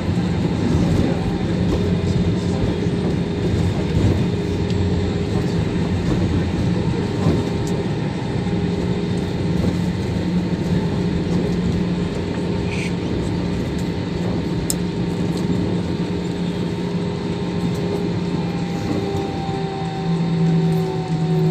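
Steady cabin noise inside an Airbus airliner: the engines drone with a constant low hum over rushing air noise. Near the end some engine tones slide down in pitch.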